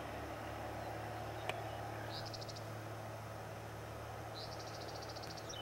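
Two short, high, rapid trills from a small animal, the second longer, about two and four and a half seconds in, over a steady low hum.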